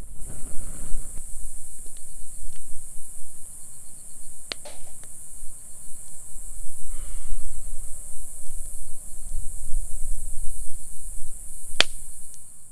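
Outdoor ambience: an uneven low rumble of wind on the microphone over a steady high-pitched hiss, broken by two sharp clicks, about four seconds and about twelve seconds in.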